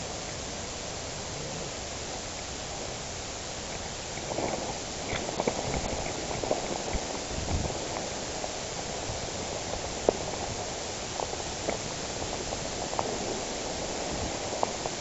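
Footsteps rustling and crunching through leaves and brush over a steady hiss, starting about four seconds in, with one sharper click near the middle.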